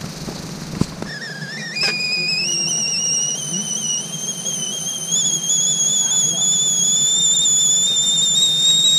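Stovetop kettle whistling as the water comes to the boil: a steady whistle that starts about a second in, jumps up in pitch shortly after and then slowly climbs higher, over a low steady hum. A few light knocks in the first second.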